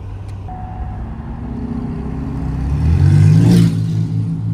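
Ford 6.7-litre high-output Power Stroke V8 turbodiesel pulling a heavy trailer load, revs rising and the engine growing louder, peaking about three and a half seconds in with a brief rush of air, then easing off.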